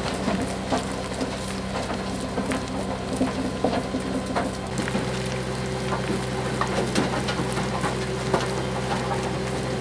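An engine running steadily with constant crackling and rattling over it. Its hum shifts about halfway through.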